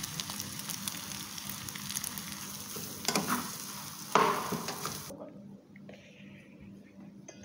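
Onion, green chili and potato filling frying in a non-stick pan: a steady sizzle, with two louder stirs of the spoon through the mixture about three and four seconds in. The sizzle cuts off suddenly about five seconds in.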